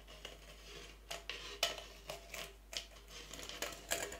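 Irregular light scratches and knocks: a straightedge board being set and held on a log while a pen scrapes a line along the rough bark. Several short, uneven scrapes a second.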